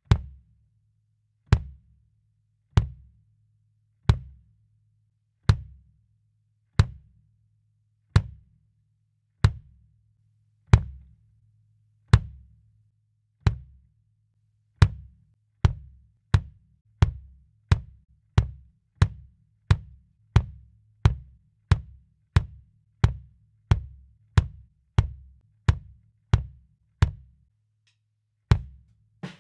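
Kick drum, a 22x16 Yamaha Maple Custom with a Remo PS3 batter head, struck by a pedal beater: single strokes about every second and a half, then steady faster strokes about two a second from about halfway, stopping shortly before the end apart from one last stroke.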